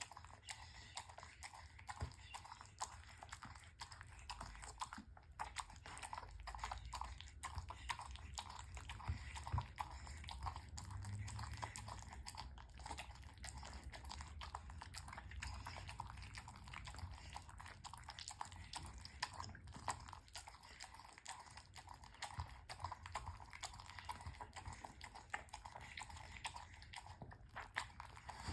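An elderly bull terrier eating, chewing its food with a continuous run of small wet clicks and crunches.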